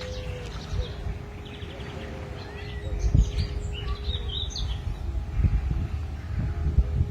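Small birds chirping, with a quick run of notes about a second and a half in and a cluster of calls a few seconds in, over a low rumble that swells at times.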